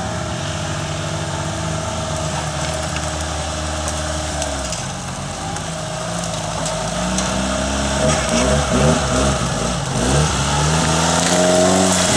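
Engine of a Suzuki off-road trial 4x4 working under load as it crawls up a rutted, muddy gully, holding steady revs and then revving up twice in the second half, getting louder as it comes closer.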